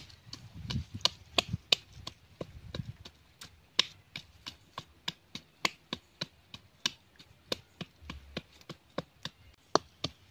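Wooden pestle pounding chilies in a small bowl: sharp, steady knocks, about three a second.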